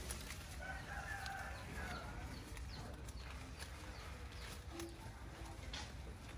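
A rooster crowing once, faint and drawn out, about a second in, with a few small bird chirps and light rustling and clicking among the trellis leaves.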